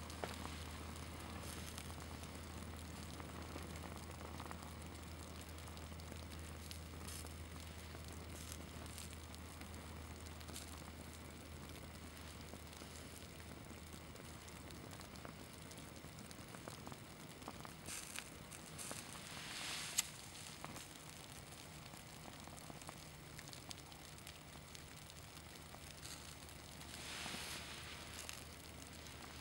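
Faint crackling and ticking of a small flame burning and melting the hem of a synthetic sports shirt, with one sharp click about two-thirds of the way through.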